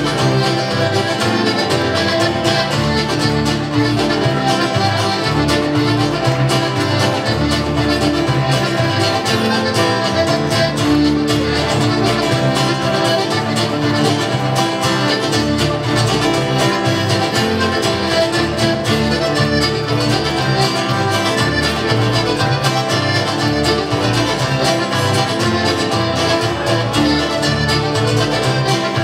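Live band playing a traditional Newfoundland tune, led by accordion over a steady bass line.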